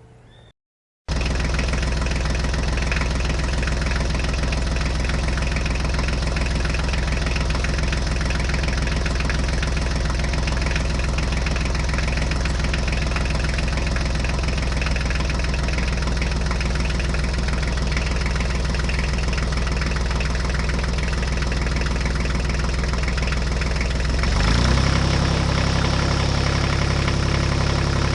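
Tractor engine running steadily at a low idle after starting up about a second in. Near the end the engine speed steps up and the pitch rises a little.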